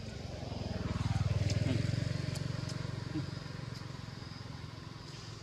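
A motor vehicle's engine passing by: a low engine hum that swells about a second in, falls in pitch as it goes past, and slowly fades.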